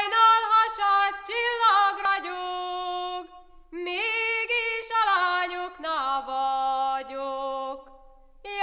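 A woman singing a Hungarian folk song unaccompanied, in long ornamented phrases with a short break between them about three and a half seconds in.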